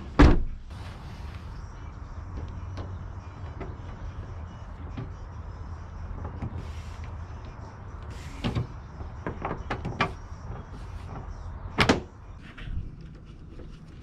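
A loud clunk right at the start, then a few lighter knocks and clatters about 8, 10 and 12 seconds in: car body and trim parts being handled and clipped onto a car.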